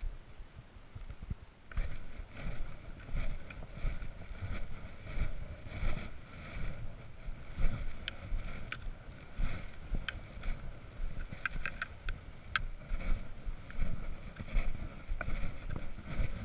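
Walking noise picked up by a hiker's body-worn camera: rhythmic thuds of footsteps and rubbing of the mount, with several sharp clicks of trekking-pole tips striking stones in the middle.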